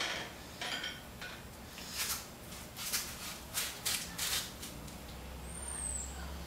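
Metal tools clinking and knocking, a few irregular knocks a second: a socket, extension and breaker bar being handled and set on the crank pulley bolt.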